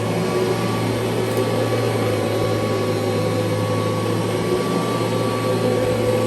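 1989 Kirby Legend II upright vacuum cleaner running steadily on carpet: a constant motor hum with a few steady tones over an even rushing hiss.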